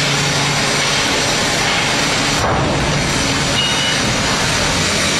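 Rear-loading compression garbage truck running with its hydraulics working, a loud, steady mechanical noise as the raised rear tailgate is lowered.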